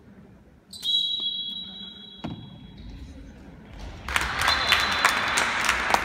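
A referee's whistle blows one long blast of about two seconds, followed by a single thud. About four seconds in, shouting and clapping break out in the hall, with a second short whistle and sharp claps or ball bounces.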